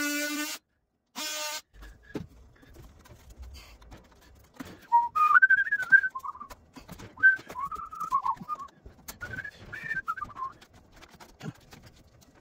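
A person whistling a wandering tune in short rising and falling phrases, with light clicks and knocks from plastic drain fittings being handled. It opens with a DeWalt cordless drill running briefly and stopping about half a second in, then a short second burst about a second later.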